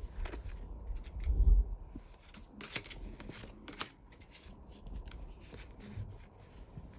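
Lorcana trading cards being handled and sorted by hand: scattered light clicks and slides of card stock, with a dull bump about a second and a half in.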